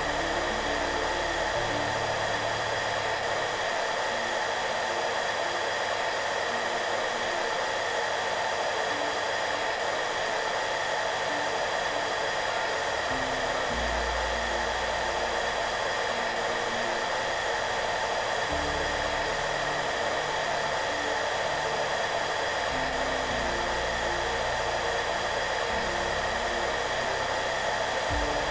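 Hair dryer running steadily, a constant even rush of air and motor noise, with soft low notes of background music changing every few seconds beneath it.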